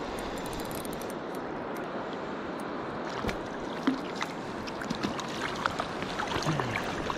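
Steady rush of river current, with sharp splashes from about three seconds in as a hooked trout thrashes at the surface and is netted.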